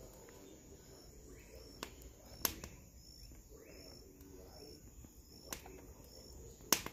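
A cricket chirping faintly in short, evenly spaced chirps. A few sharp clicks sound over it, the loudest about two and a half seconds in and another just before the end.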